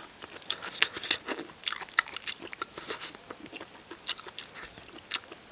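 A person chewing and biting a mouthful of braised pig's trotter with crisp skin, heard as irregular short clicks.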